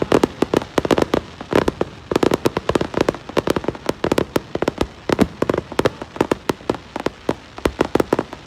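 Fireworks going off in a rapid, irregular string of sharp bangs and pops, several a second.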